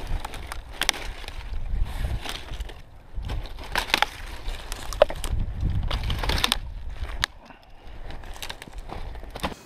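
Dry dead pine branches and twigs snapping and cracking as they are broken off and pulled from a brush pile by hand, with many irregular sharp cracks and rustling of the brush.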